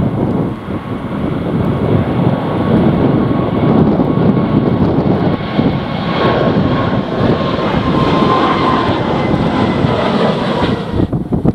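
Jet airliner's engines running as it passes, a steady whine near 1 kHz and its overtones over a loud rushing noise, with wind buffeting the microphone. The engine sound cuts off suddenly near the end.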